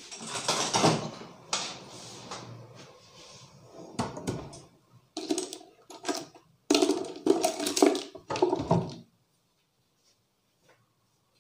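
Hands massaging the head and shoulders: uneven bursts of rubbing and patting, stopping about nine seconds in.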